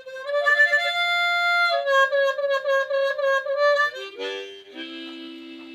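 Harmonica playing a short melody of held notes that step up and back down, ending on a low two-note chord.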